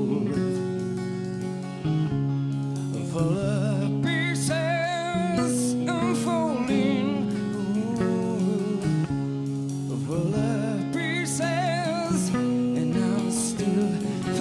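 Live rock band playing a slow ballad: electric guitar picking sustained chords, with a male voice singing with wide vibrato from about three to four seconds in.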